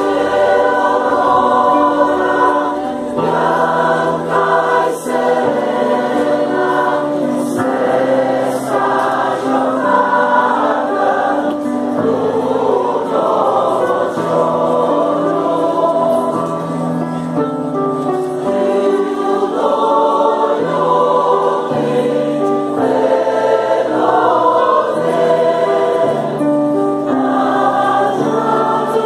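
Mixed choir singing a Christmas piece in parts, with long held chords.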